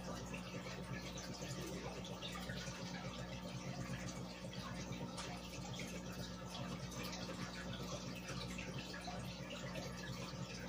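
Aquarium aeration running: a steady fizzing and bubbling of air bubbles rising through the water and breaking at the surface, over a low steady hum.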